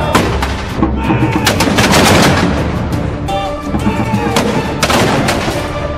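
A string of black-powder musket shots, sharp reports at uneven spacing with several close together in the middle, over a background music track.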